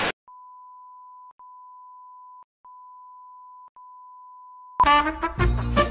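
A moment of TV static, then a steady single-pitch test-tone beep of the kind played over colour bars, broken by three short gaps. About five seconds in, the tone gives way to loud brassy music.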